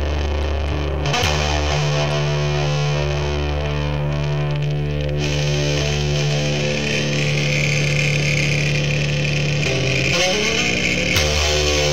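Lo-fi rock instrumental passage: distorted electric guitar through effects, holding long droning chords that change about a second in and again midway, with a sliding pitch bend near the end.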